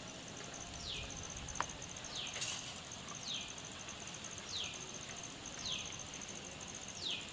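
Outdoor ambience: an insect's steady high trill with a bird repeating a short, falling whistled note about once a second. A single soft click sounds near the start.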